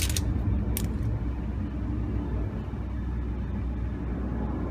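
A low, steady rumble, with a few sharp clicks in the first second.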